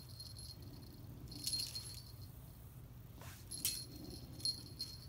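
A small bell on a cat toy jingling in several short bursts as a kitten bites and bats at it.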